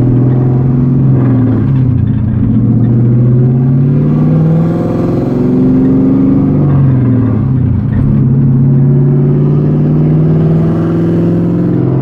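Mazda RX-7 FD's engine heard from inside the cabin, pulling hard under acceleration: its pitch climbs, drops back at each gear change (several times), and climbs again.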